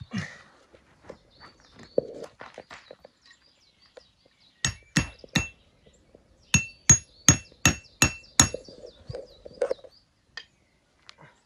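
A hammer striking a metal tent stake with a ringing clink: three quick strikes, a short pause, then six more in steady succession, as the stake is driven into the ground.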